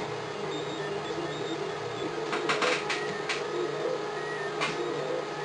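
Desktop 3D printer running a print, its stepper motors whirring in short tones that keep changing pitch as the hotend moves. A quick cluster of sharp clicks comes around the middle, and one more near the end.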